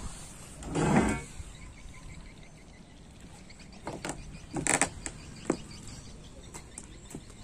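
A heavy rusty steel plate being lifted off a boat and carried: a loud scrape about a second in, then a few sharp metallic knocks and clunks around four to five seconds in.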